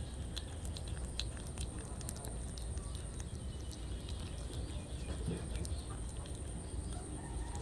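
Kitten chewing small boiled fish close to the microphone: irregular small clicks and crunches, over a steady low hum.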